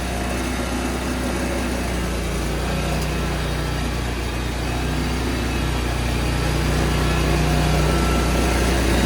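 Small gasoline engine of a remote-control tools carrier running steadily after being started, gradually getting a little louder.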